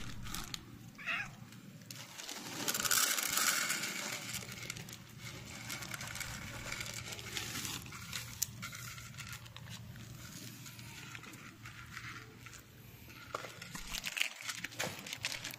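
Cats crunching dry kibble from a bowl, a run of small crunching clicks, with a louder rustle about three seconds in.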